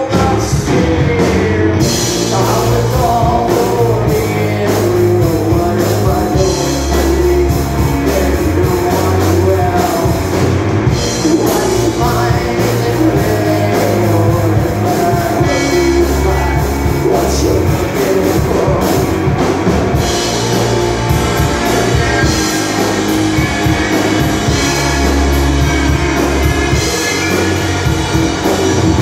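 Live rock band playing a song: electric guitars, keyboards and drums, with a woman singing.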